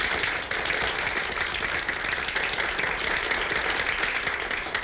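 An audience applauding, a dense steady clapping that runs on without a break.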